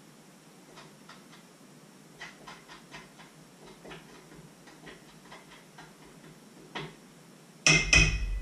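A utensil stirring batter in a stainless steel bowl, its strokes tapping the metal sides in light, irregular clicks. Near the end comes a sudden loud knock and clatter.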